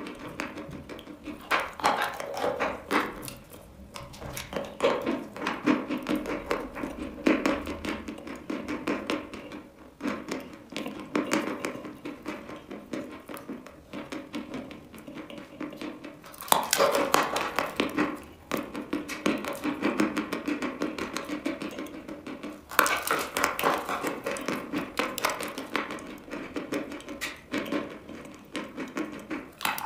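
Close-up chewing and crunching of a dry white chalk block coated with a black layer: a quick, uneven run of crisp crunches, louder in two stretches past the middle.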